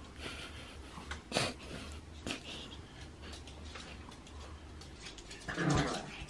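Two small dogs sniffing and snuffling at an outstretched hand, with a few short noisy breaths about a second and two seconds in. Near the end a brief human voice sound is louder than the rest.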